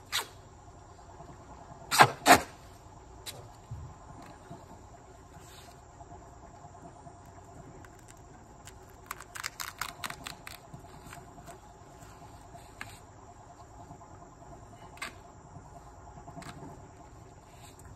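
Steady high-pitched insect chirring, broken by sharp snaps and crackles of hands handling a roll of tape: two loud snaps about two seconds in, a quick crackling run around the middle, and a couple of single clicks near the end.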